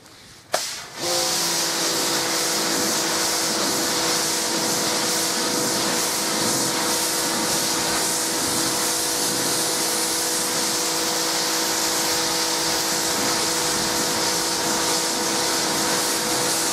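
Karcher X-Series 2000 psi electric pressure washer starting about a second in, then running steadily: the motor and pump hum at a steady pitch under the loud hiss of the water jet spraying the trailer's aluminum panel.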